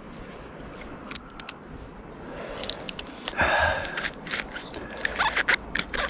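Scrapes, rustles and small metallic clicks and jingles of a tree climber's hands and gear working against a trunk, with a brief louder rustle about three and a half seconds in.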